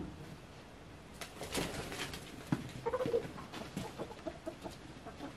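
Backyard chickens clucking here and there in short, scattered calls, with a few soft knocks among them.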